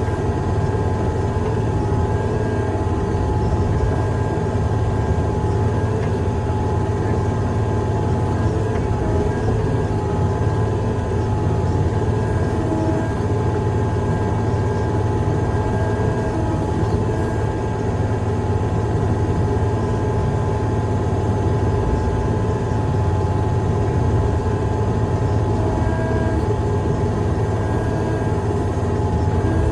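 Heavy construction machine's engine running steadily, a constant low drone with faint steady whining tones above it.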